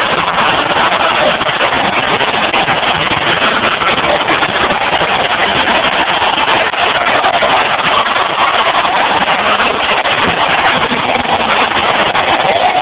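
Packed arena crowd cheering loudly and without a break, celebrating a championship-clinching win.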